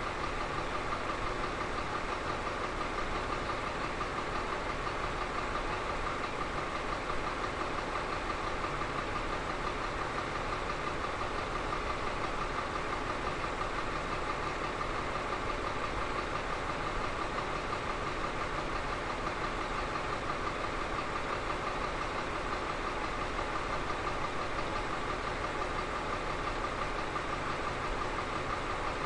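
Caterpillar 3508B V8 diesel engine running steadily on a dynamometer, holding a constant speed with no change in pitch.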